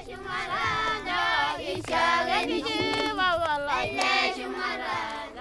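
Children singing a melody with long held notes that slide up and down.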